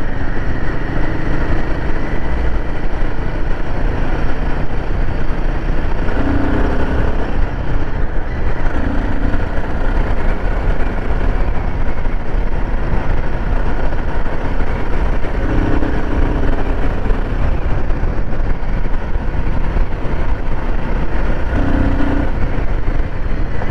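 Royal Enfield Himalayan 450's single-cylinder engine running steadily under way, with heavy wind rush on the microphone.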